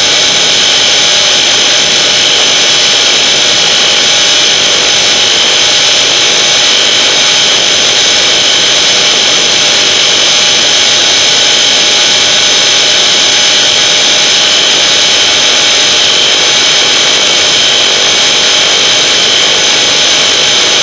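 Traxxas electric RC car's motor and drivetrain whining steadily at high speed on a 2S LiPo battery, over tyre and wind rush picked up by a camera mounted on the car.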